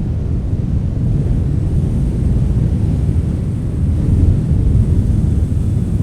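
Strong wind blowing and buffeting the microphone: a loud, deep, steady rush with no distinct tones, swelling slightly about four seconds in.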